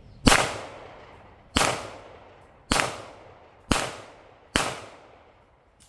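Five gunshots about a second apart, the first the loudest, each followed by a short ringing echo.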